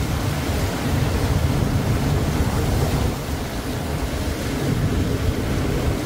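Ocean surf breaking and washing onto the beach, a steady rush of noise, with a low gusty rumble of wind on the microphone.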